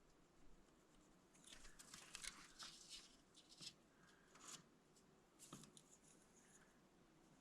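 Near silence with faint, scattered rustling and scraping handling noises, in a few short clusters through the middle.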